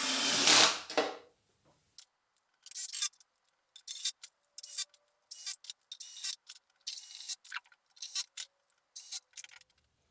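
Cordless drill-driver running the oil pan bolts in, one longer burst of about a second at the start, then a string of short, thinner bursts as it drives bolt after bolt, its clutch set at position five.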